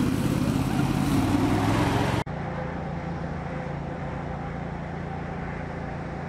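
SPACE 2000 hovercraft engine and fan running loud and close for about two seconds. It then cuts suddenly to a quieter, steady drone as the hovercraft travels across the flats.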